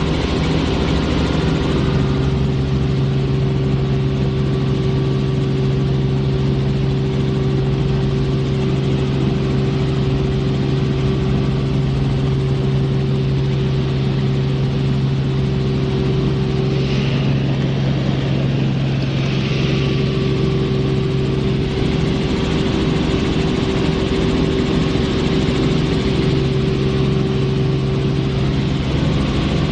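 Helicopter engine and rotor running in flight with a steady, even drone, its main low tone dropping slightly in pitch about a second and a half in.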